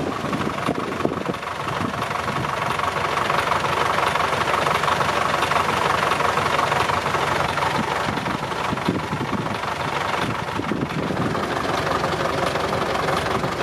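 An engine running steadily, with scattered short knocks.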